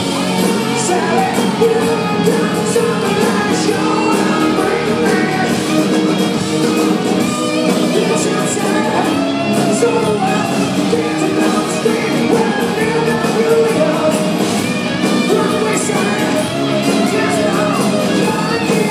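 Live rock band playing: a male lead singer sings over acoustic and electric guitars with a steady beat.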